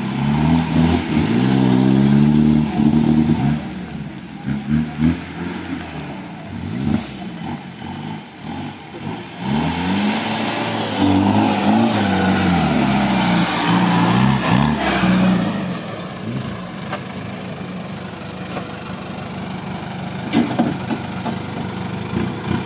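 Mahindra 4x4 jeep engine revving hard in repeated rising and falling bursts as it climbs a muddy off-road trail. About 16 seconds in it drops to a lower, steadier running note.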